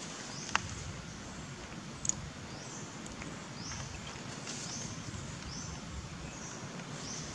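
Forest ambience: a steady low hiss with a short high chirp repeating about once a second, and two sharp clicks, about half a second and two seconds in.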